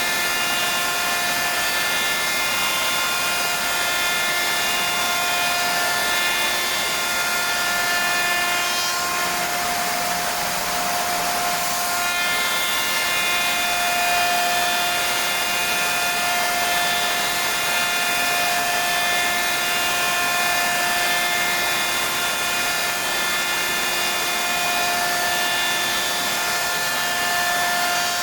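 SAOMAD WOODPECKER JUST 3500 CNC machining centre running, its spindle giving a steady high whine over a hiss of cutting and air. The whine breaks off into a rougher noise for a few seconds about ten seconds in, then returns.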